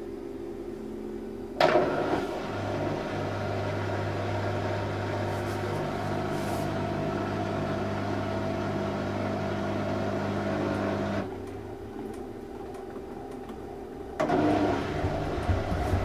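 Panasonic NA-168VG2 washing machine's inverter motor driving the drum. A low hum surges suddenly about a second and a half in and runs steadily until about eleven seconds, then drops back and kicks in again unevenly near the end. The machine is struggling to get into its spin, which the owner blames on a faulty machine that also throws H41 errors.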